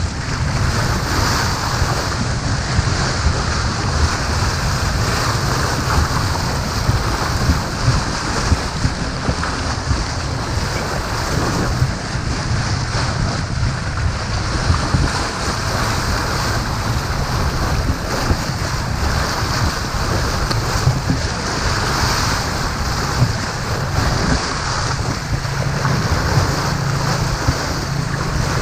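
Wind buffeting a GoPro Hero5's microphone over the steady rush of sea water along a sailboat under way.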